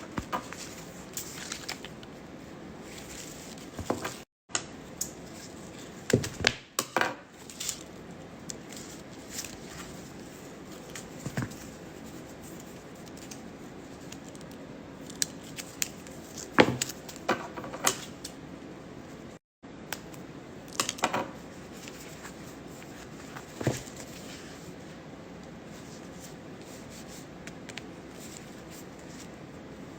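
Unboxing handling sounds: scattered clicks, rubbing and rustling of packaging and fabric, with what may be scissors. The sound cuts out briefly twice.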